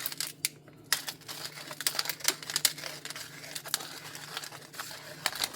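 Pepper being shaken or ground over raw vegetables: a run of irregular sharp clicks and rattles, several a second.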